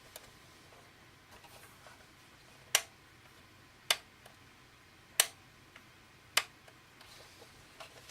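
Four sharp clicks a little over a second apart, with a few fainter clicks between them: buttons or switches being pressed on a vintage Panasonic RC-65 digital clock radio.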